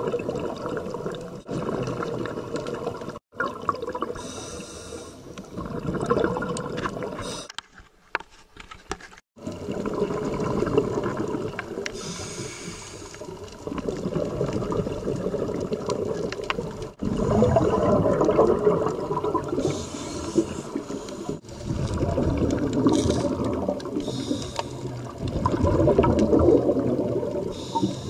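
Underwater bubbling and gurgling of a scuba diver's exhaled air from the regulator, coming in waves of breaths, with short hisses between them. The sound drops out briefly about eight seconds in.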